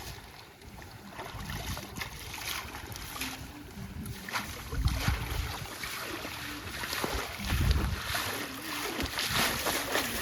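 Wind gusting on the microphone over surf, with scattered sharp clicks throughout.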